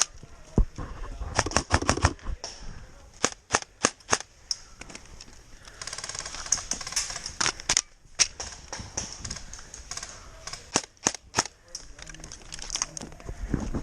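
Airsoft guns firing: sharp single shots and short quick bursts, coming in irregular clusters throughout.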